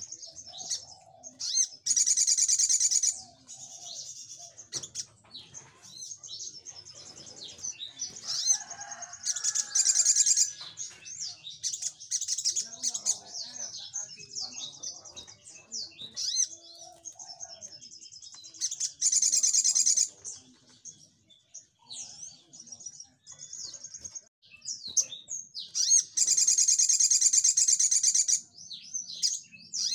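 Male olive-backed sunbird (sogok ontong) singing. Soft, high twittering runs throughout, broken four times by a loud, fast, rattling burst of song (the 'nembak' song); the last burst, near the end, lasts about three seconds.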